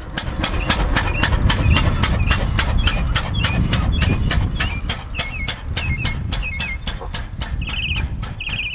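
Benz Patent-Motorwagen's single-cylinder engine chugging in an even beat of about four strokes a second as the car drives off, with a small high chirp repeating along with it. The sound fades a little in the second half as the car draws away.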